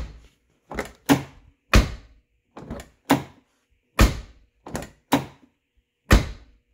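Car door opened and shut about four times in a row, each time with a pair of light latch clicks as it opens and a solid thud as it closes. The door shuts on a newly fitted plastic door striker bolt bushing that has just been sprayed with silicone lubricant.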